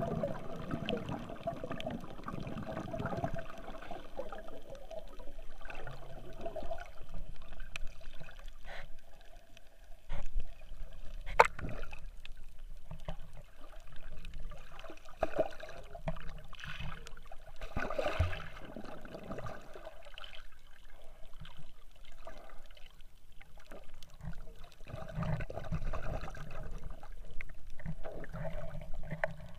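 Muffled water sloshing and bubbling heard with the microphone underwater inside a camera's waterproof housing, stirred by a swimmer moving nearby. Scattered clicks and knocks, the sharpest about eleven seconds in.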